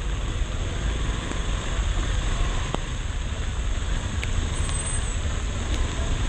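Motorcycle moving slowly through traffic in heavy rain: a steady low rumble of engine and wind on the microphone over the hiss of rain and wet road, with a few sharp ticks.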